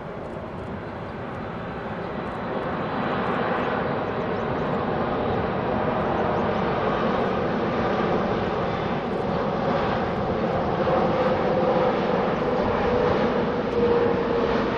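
Boeing 747-8 on final approach with its landing gear down, its four GEnx-2B turbofan engines running: a steady rushing jet noise that grows louder as the airliner comes nearer. A droning tone runs through it and slides a little lower near the end as the aircraft passes.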